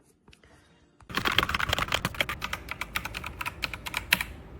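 Redragon K668 mechanical keyboard being typed on fast: a quick, uneven run of key clicks and clacks that starts about a second in.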